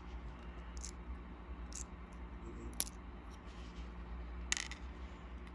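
A few small, sharp metallic clicks and taps from steel tweezers working in a brass lock cylinder while its pins are picked out, one sharper click near the middle, over a low steady hum.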